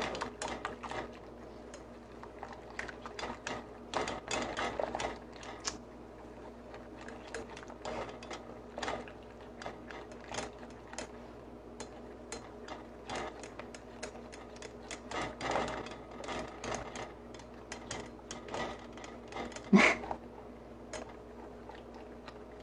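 Wire whisk stirring a custard base in a metal saucepan, its wires clicking and tapping against the pan in a quick, uneven run, with one louder clank near the end. A faint steady hum lies underneath.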